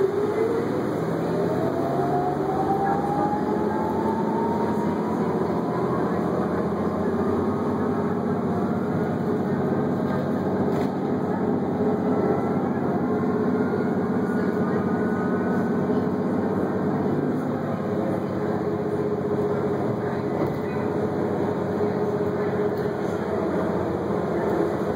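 Drivetrain hum of a moving bus heard from inside the cabin. A whine climbs steadily in pitch over roughly the first fifteen seconds as the bus gathers speed, then holds.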